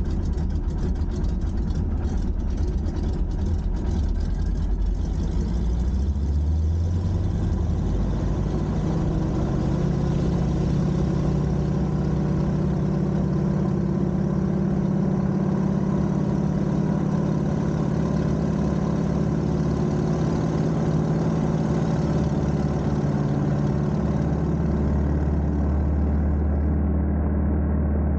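BT-13 Valiant's Pratt & Whitney R-985 nine-cylinder radial engine running steadily. Its note rises about a third of the way in and then holds at the higher pitch.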